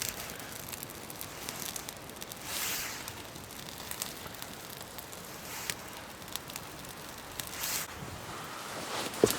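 Campfire crackling: scattered sharp pops and clicks, with a couple of brief rustling swells and a louder snap near the end.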